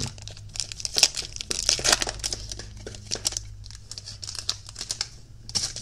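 Silver foil wrapper of a 2021 Topps Opening Day baseball card pack being torn open and crinkled by hand, a stream of irregular crackles, over a faint low hum.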